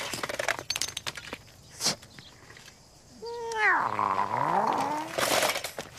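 An animal's long drawn-out call, falling in pitch and then rising again, about three seconds in. Scattered clicks and a short burst of noise come before it.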